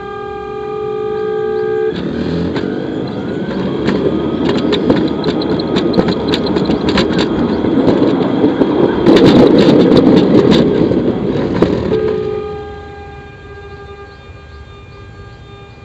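Homemade VVVF inverter drive on a sit-on miniature railway car: the inverter-fed motor whine rises in pitch as it powers up, then is covered by a loud rattling rumble with many clicks from the car running on the track. About twelve seconds in the whine comes back, falling in pitch, with stepped tones above it.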